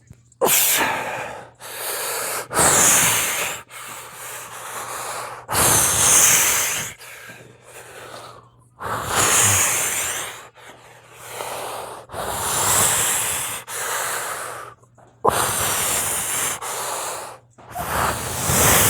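A man breathing hard from the exertion of chin-ups: forceful breaths close to the microphone, roughly one every second or so.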